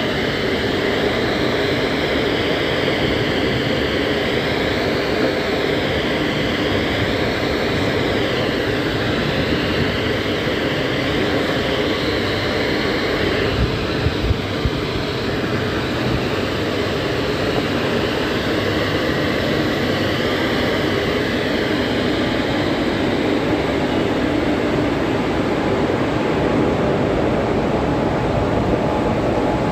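WCAG1 electric locomotive's cooling blowers and auxiliary machinery running: a steady loud rush with a high whine that wavers slowly in pitch. A couple of brief knocks come about halfway through.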